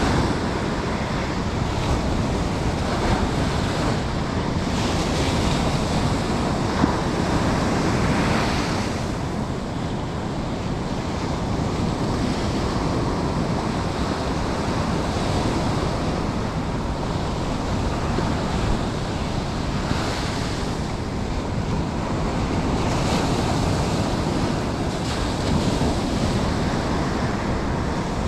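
Ocean surf breaking and washing up a sandy beach in slow swells every few seconds, with wind buffeting the microphone. A single brief knock stands out about seven seconds in.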